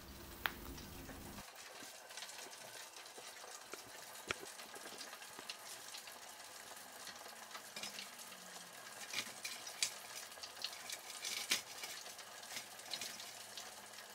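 Freshly fried chicken pieces crackling and sizzling faintly on a perforated metal draining tray, with light clicks and taps as the pieces are picked up, busier from about nine seconds in.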